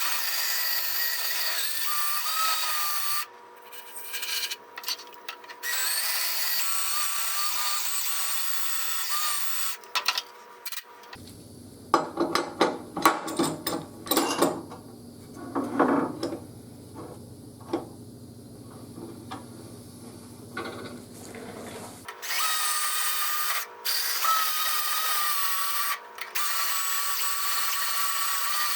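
An electric drill spinning a carbide burr, grinding a V-groove into the cast iron of a cracked exhaust manifold. It runs with a steady high-pitched whine in several bursts. Midway it is broken by about ten seconds of clicks and knocks over a low hum.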